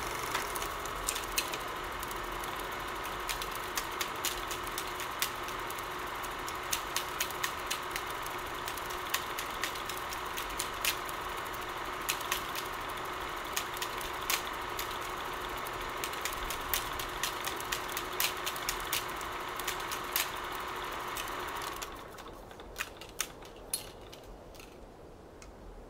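A steady hum with irregular crackling clicks; the hum cuts off suddenly about four seconds before the end, leaving a few scattered clicks.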